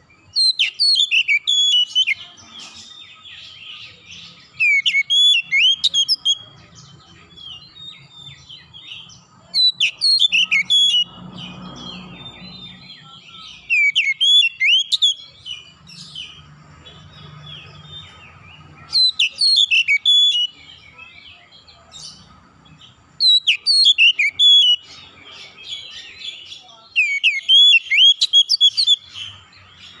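Oriental magpie-robin (kacer) singing: seven loud phrases of sweeping, high whistled notes, each lasting one to two seconds and repeated about every four seconds, with softer chirping in the gaps.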